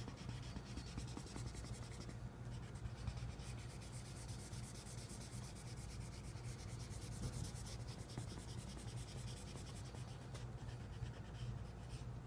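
Felt-tip marker rubbing back and forth across sketchbook paper in many quick strokes, coloring in a large area.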